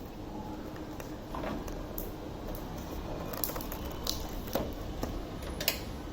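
Handling noise: a few light clicks and taps, spaced irregularly, the sharpest one near the end, over a steady low background hiss.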